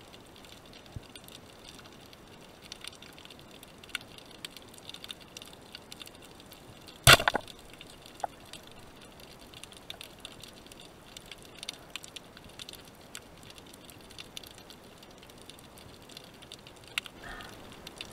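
Underwater crackle of ticks and clicks, with one loud, sharp crack about seven seconds in, a speargun firing its spear.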